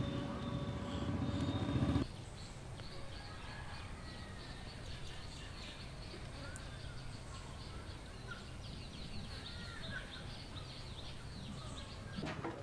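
A vehicle's rumble cuts off abruptly about two seconds in. Quiet outdoor ambience follows, with birds chirping repeatedly.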